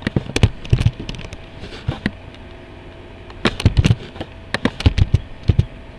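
Computer keyboard keystrokes in quick irregular clusters, sharp clicks with a low thump: code being typed, copied and pasted in a text editor.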